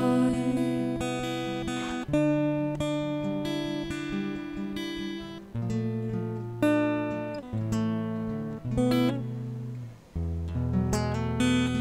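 Acoustic guitar playing a slow instrumental passage alone, with no voice: full chords strummed and left to ring, a new chord every second or two.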